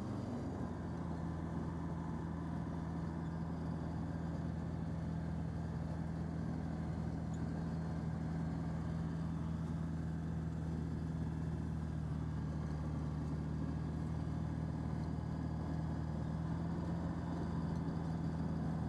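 CH701 STOL ultralight's engine and propeller running steadily at one constant pitch, heard from inside the cockpit.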